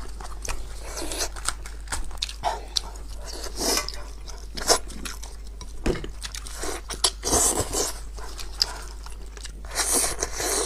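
A person eating braised sheep's head meat close to a clip-on microphone: wet biting and chewing with crunching, in irregular bursts with a few sharp clicks.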